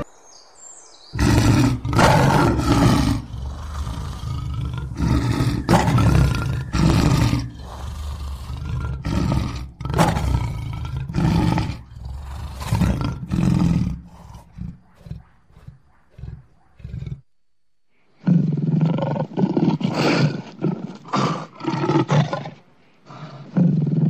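Jaguar roaring in a run of short calls, about one a second. It pauses for about a second near the end, then starts again.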